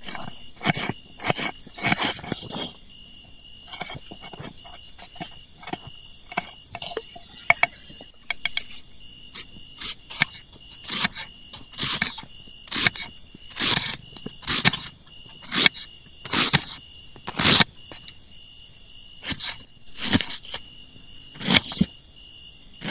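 A steady high chirring of night insects such as crickets, with frequent irregular sharp clicks and knocks over it, one or two a second.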